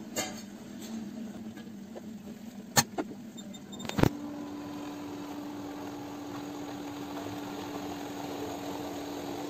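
A steel pot knocks twice against an induction cooktop as it is set down, about three and four seconds in. From the second knock the cooktop runs with a steady low hum.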